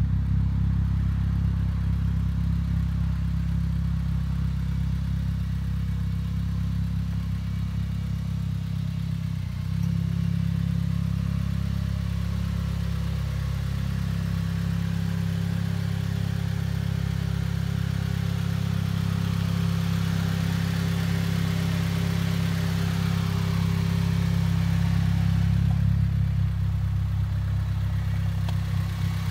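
Turbocharged 2006 Acura RSX Type-S 2.0-litre four-cylinder engine idling steadily, a low, even exhaust drone with no revving.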